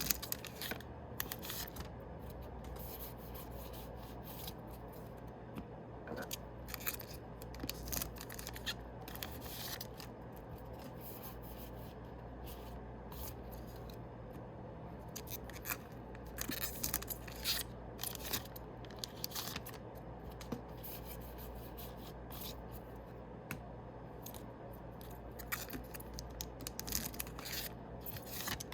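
Yu-Gi-Oh! foil booster-pack wrappers and trading cards being handled and opened: irregular clusters of quick rasping and scraping strokes with short pauses between them.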